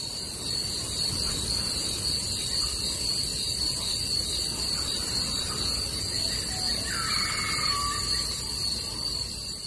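Savannah nature ambience: a steady high-pitched chorus of insects such as crickets, over a low steady noise, with a brief chirping bird call about seven seconds in.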